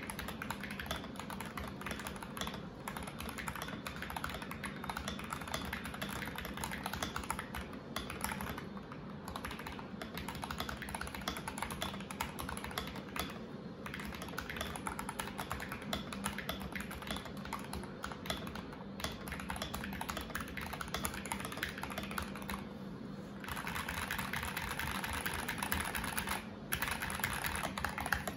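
Fast, continuous typing on a mechanical keyboard fitted with Akko OSA-profile keycaps: a dense stream of key clacks broken by a few short pauses. The typing becomes denser and louder about four-fifths of the way through.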